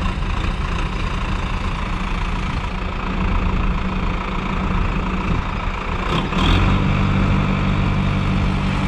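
Sonalika DI-750 III tractor's diesel engine idling; about six and a half seconds in, after a brief clatter, its note turns steadier and a little louder.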